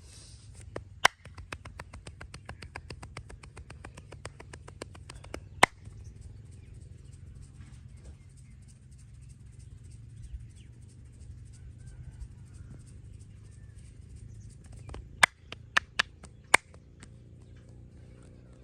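Massage by hand with joint cracking: a sharp crack about a second in, then a fast run of light taps, about ten a second, for some four seconds, ending in another sharp crack. After a lull, four sharp cracks in quick succession near the end, over a low steady hum.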